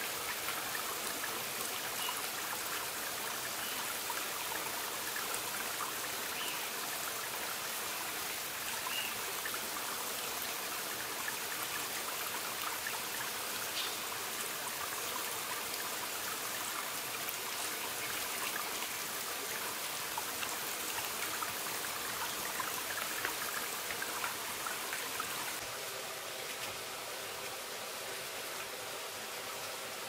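Steady rain falling in the jungle: an even hiss of water with scattered drips, a little quieter near the end.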